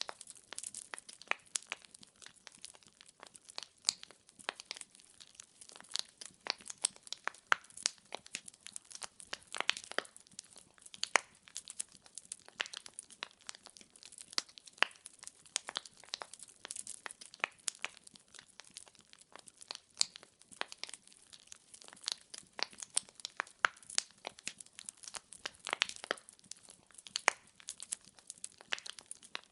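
Wood fire burning in a fireplace: firewood crackling and popping in a dense, irregular stream of sharp snaps over a faint hiss.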